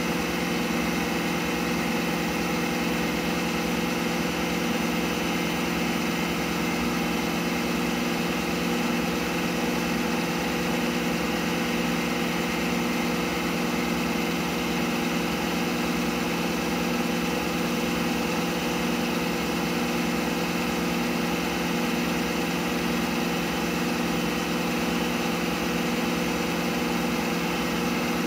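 CNC milling machine running steadily with its spindle turning a small workpiece, the mill working as a lathe: an even hum made of several constant tones that does not change in level.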